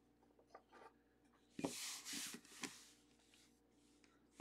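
Faint handling noise of a plastic card holder: a few small clicks, then a soft rubbing scrape lasting about a second in the middle as it is set into a display stand.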